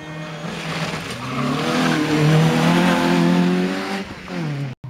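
A rally car's engine accelerating hard past the spectators: the note climbs in pitch and grows loud, holds at full throttle, then drops as the car goes by. The sound cuts out suddenly for a moment near the end.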